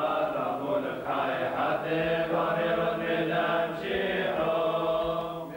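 Voices singing a slow liturgical chant in long held notes, as at a Syriac Christian funeral.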